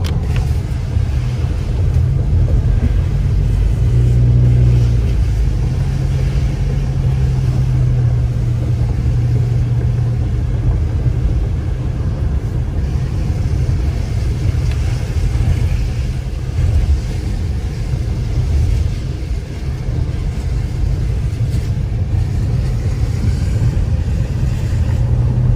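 Steady low rumble of a car driving on a wet road, heard from inside the cabin: engine hum and tyre noise on wet pavement. The rumble swells briefly about four seconds in as an oncoming truck passes.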